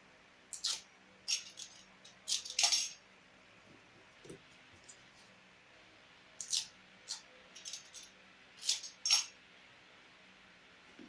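Light clicks and clinks of small hard objects being handled, coming in a few short clusters with quiet gaps between them.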